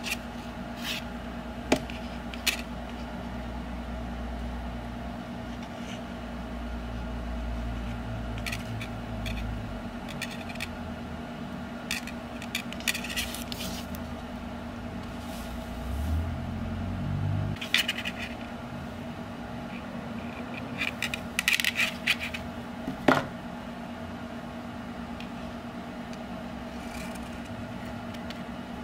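Thin steel wire and needle-nose pliers being handled: scattered light metallic clicks, taps and scrapes as the wire is bent, with groups of clicks around the middle and near the end, the sharpest about two-thirds of the way through.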